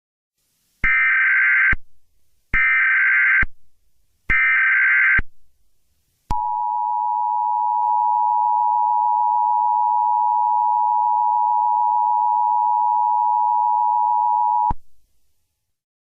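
Emergency Alert System header tones: three short bursts of SAME data tones, each just under a second, followed by the two-tone EAS attention signal held steady for about eight seconds, then cut off sharply.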